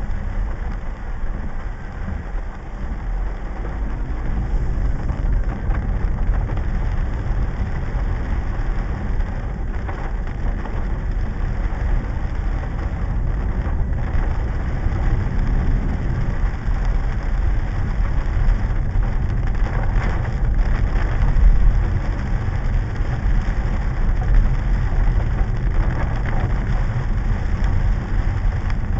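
Heavy downpour on a flooded street, a steady rain hiss under the low running of car engines in traffic, with a few louder swells a little past two-thirds of the way through.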